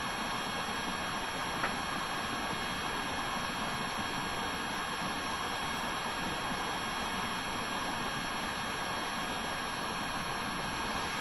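Steady background hiss with a faint high-pitched whine running through it, and one faint click about a second and a half in.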